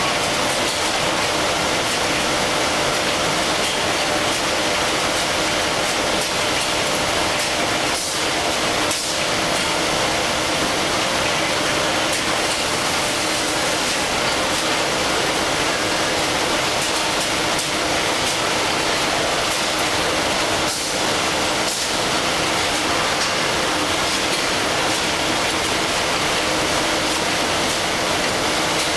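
Automatic facial tissue production line running: steady machine noise with a constant low hum and a few sharp clicks.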